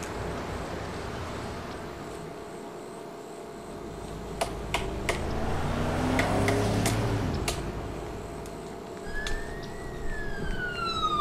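City street traffic: a vehicle passes with its engine pitch falling around the middle, and a few sharp clicks sound. Near the end an emergency siren starts, rising and then sliding down in pitch.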